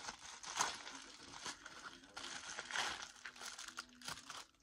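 Packaging crinkling and rustling in hands as a small mail-order item is handled and unwrapped, in several short bursts.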